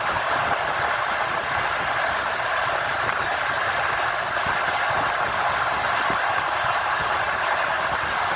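Train wheels running on the rails: a steady rushing rumble with faint low knocks underneath, holding an even pace.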